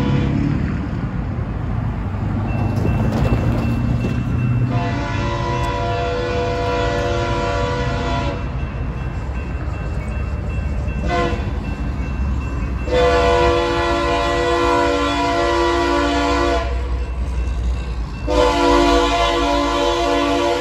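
Three-chime air horn on an approaching Kansas City Southern SD70-series locomotive, sounding a long blast about five seconds in, a brief tap, then two more long blasts. It is a rare horn that sounds to the railfan like a Leslie RS-3L and RS-5T mixed together.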